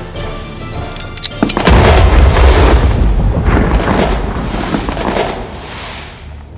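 Background music, then a few sharp clicks and a loud explosion sound effect about a second and a half in. The explosion is a deep boom that rumbles on and slowly fades: a staged cannon shot from the gun emplacement.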